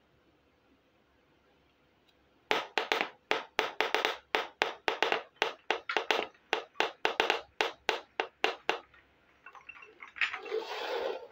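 Small plastic toy pot and its lid clicking against each other, about four sharp clicks a second, as it is handled. Near the end comes a short scraping as the pot is set down and pushed along the floor.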